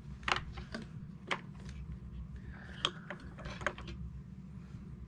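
Plastic and metal parts of a partly disassembled Kirby vacuum clicking and knocking as it is handled and tipped onto its side, about half a dozen sharp clicks spread over a few seconds.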